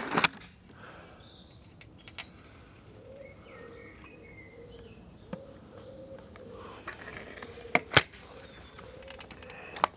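A .22 break-barrel air rifle fires as the sound opens: a sharp crack followed a quarter-second later by a second snap. Faint bird chirps follow, then further isolated sharp clicks and snaps, two of them loud, near the end.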